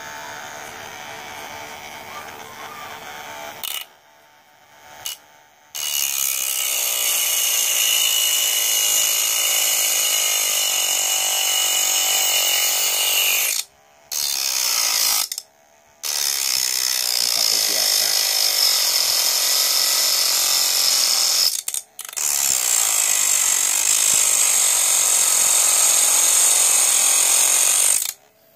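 Small DC motor salvaged from a laser disc player, driving a homemade mini grinder's thin cutting disc, running with a steady high-pitched whine. It is switched off and back on about 4, 14 and 22 seconds in, and stops near the end.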